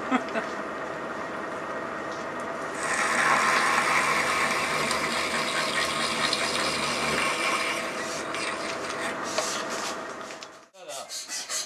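Milling machine running while counterboring a steel bicycle bridge tube: a steady motor hum, with louder cutting noise from about three to eight seconds as the table is fed by handwheel. Near the end it stops abruptly and a rhythmic scraping of about three strokes a second begins.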